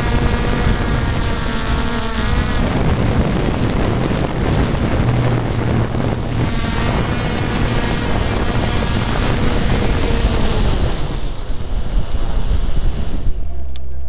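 Small multirotor drone's motors and propellers whirring loudly as heard from its onboard camera, with a steady high whine and rushing air, while it descends and sets down. The whine cuts off suddenly near the end as the motors stop.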